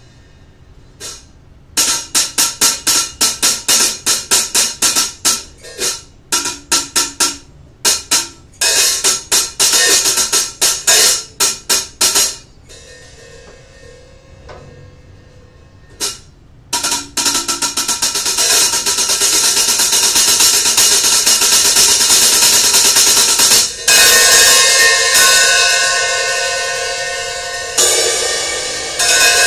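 Hi-hat cymbals struck with drumsticks, their gap set a little wider: runs of quick, sharp strokes in the first half, then after a short pause a long continuous cymbal wash that gives way to a ringing sustain with several steady tones near the end.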